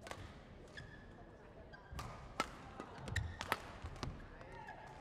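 Badminton rally: several sharp racket strikes on the shuttlecock, with short shoe squeaks and footfalls on the court floor.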